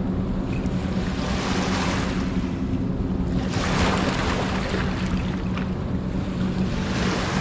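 Small waves washing in over a rocky shore, swelling and falling back every few seconds, with wind rumbling on the microphone. A steady low hum runs underneath.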